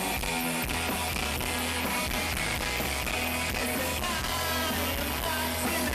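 Background music: an energetic track with guitar and a steady beat over a bass line.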